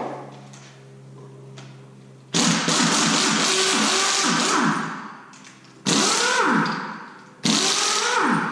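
Power wrench run in three bursts, one long and two short, spinning out bolts as the engine's top end is stripped for cylinder-head removal.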